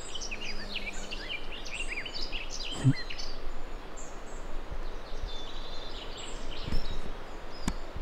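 Small birds singing and chirping in a busy run of short, quick high notes over steady outdoor background noise, thinning out after about four seconds.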